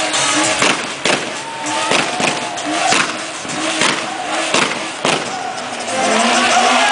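Car doing a burnout: engine held at high revs with its rear tyres spinning on the tarmac, and sharp pops about twice a second that stop near the end.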